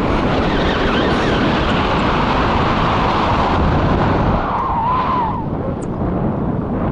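Wind rushing over the microphone of a selfie-stick camera in paraglider flight, a loud steady buffeting that eases slightly past the middle. About five seconds in, a short wavering voice sound, like a laughing whoop, rises and falls through it.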